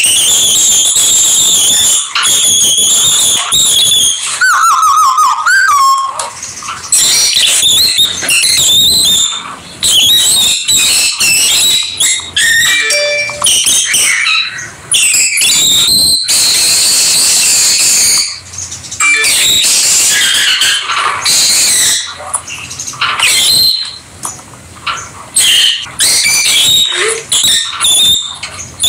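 Several rosy-faced lovebirds chattering and screeching in loud, high-pitched calls, nearly unbroken, with a brief lower warbling call about five seconds in.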